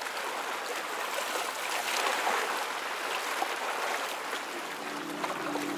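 Water rushing and splashing in a steady stream of small splashes. About five seconds in, a low steady hum joins it.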